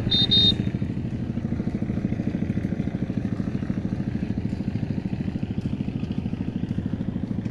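A small engine running steadily at idle, an even, rapid chug of about ten beats a second that holds its level throughout.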